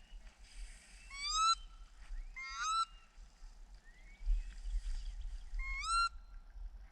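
Wood ducks calling: three short rising squeals, each about half a second long, with a fainter rising call between them.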